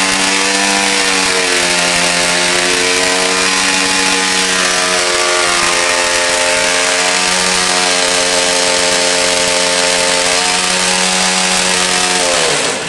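Jawa motorcycle engine held at high revs during a burnout, with a dense hiss of the spinning rear tyre over the steady engine note. Near the end the revs drop and the sound cuts off.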